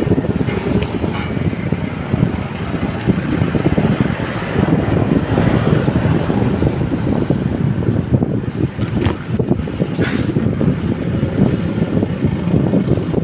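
Wind buffeting the microphone of a camera carried on a moving bicycle, a steady rumbling roar, mixed with street traffic including a van passing close by. A few short sharp knocks come near the middle.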